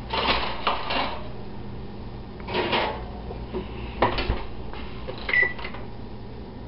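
Glass baking dish clattering as it is lifted off the stovetop and slid into an electric oven, then the oven door knocking shut about four seconds in. A short electronic beep follows from the oven's keypad as it is set.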